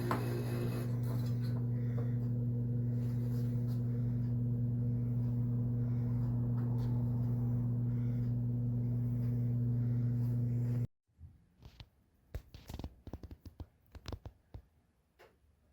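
A steady low electrical or motor hum that cuts off abruptly about eleven seconds in, followed by faint scattered light taps and clicks.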